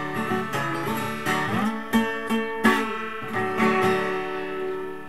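Acoustic guitar played solo: a few strummed chords and picked notes, with one note bent upward about a second and a half in, then a last chord left to ring and fade.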